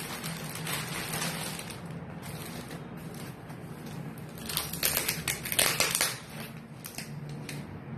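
Plastic parcel packaging crinkling and rustling as hands turn and pull at it, with a louder run of sharp crackles from about four and a half to six seconds in.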